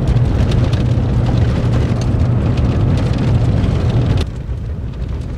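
Vehicle driving, heard from inside the cabin: a steady low engine and road hum with a dense crackle of small ticks, which changes abruptly and gets quieter about four seconds in.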